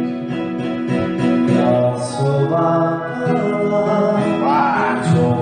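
Karaoke backing track with guitar playing, and a man singing along into a handheld microphone near the end.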